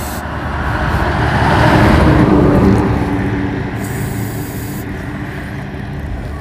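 A road vehicle passing close by, its noise swelling to a peak about two seconds in and then fading away.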